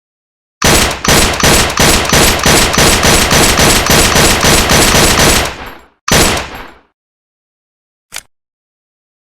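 Rapid gunfire: a run of evenly spaced shots lasting about five seconds, followed by one more loud report and a faint click near the end.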